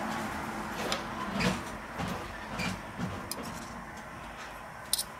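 A metal spoon scraping and knocking as cream cheese is spooned into scored figs on a stainless steel tray: a handful of short, soft clicks and scrapes over a steady background hiss.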